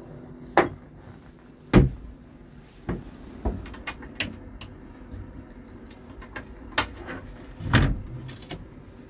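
Wooden cabin door and its brass lever latch being handled: a series of sharp knocks and clunks, the loudest about two seconds in and again near the end.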